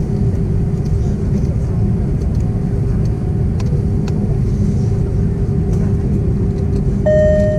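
Cabin noise of an Airbus A330-200 at the start of the runway before take-off: a steady low rumble with a constant hum, the engines not yet spooling up. Music comes in near the end.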